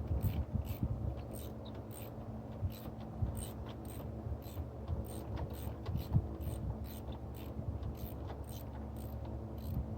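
Hand ratchet clicking in steady strokes, about two or three a second, while working spark plugs on a Dodge 4.7 V8, over a low background rumble.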